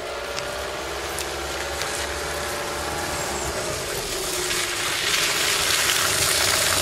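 Small van driving up along a wet road, its engine and the hiss of its tyres on the wet surface growing steadily louder as it approaches.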